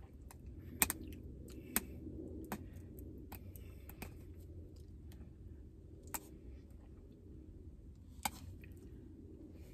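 Fingers picking and twisting at the sealed plastic cap of a milk bottle, giving scattered small clicks and scratches, with half a dozen sharper clicks spread unevenly through.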